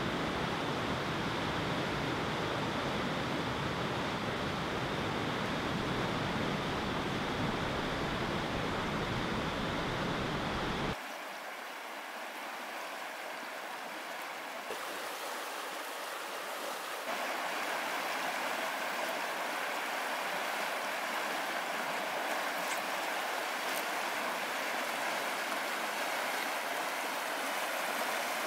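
Steady rush of river water. A low rumble under it cuts out abruptly about 11 seconds in, and the water's tone shifts again a few seconds later.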